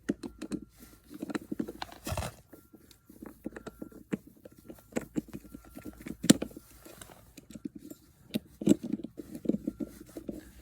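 Irregular clicks, knocks and scrapes of metal outdoor-faucet parts being handled as the faucet handle is fitted back onto the stem.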